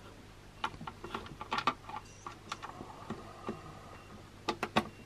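Small clicks and taps of plastic toy parts and a screw being handled while the head of a vintage AT-AT toy is screwed together, with a few sharper clicks close together near the end.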